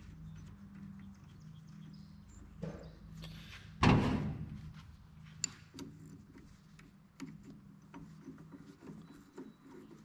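Metal clinks and clicks of hand tools and small parts being handled on a baler knotter, with one louder clank about four seconds in that rings briefly, over a steady low hum.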